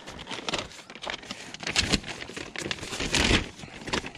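Brown paper yard waste bag crinkling and rustling as it is opened out by hand: a run of irregular crackles, loudest about two seconds in and again about three seconds in.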